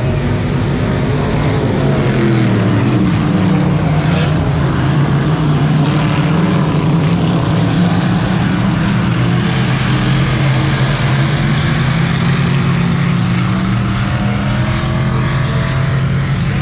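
Dirt-track modified race car engine running at speed, a loud steady drone whose pitch dips about two seconds in.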